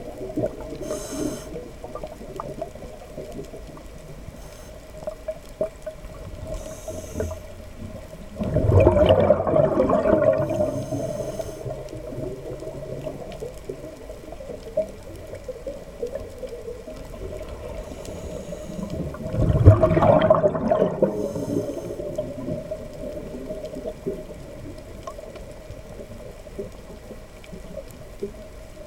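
Underwater sound on a night dive: a scuba diver's regulator exhaling, two loud rushes of bubbles about ten seconds apart, each lasting about two seconds, over a steady low hum.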